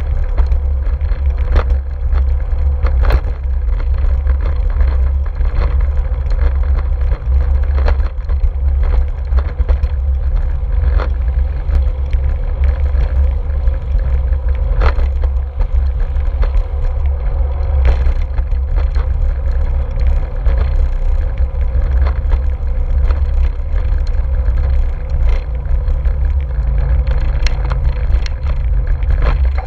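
Steady low wind rumble on a handlebar-mounted action camera's microphone while a bicycle rolls over paved streets, with occasional sharp knocks and rattles as the bike jolts over bumps in the paving.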